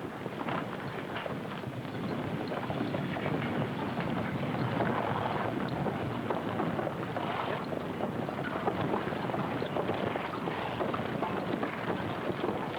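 A dense, continuous clatter of many horses' hooves with wagons rolling, growing a little louder about two seconds in. It comes through a dull, narrow-band old film soundtrack.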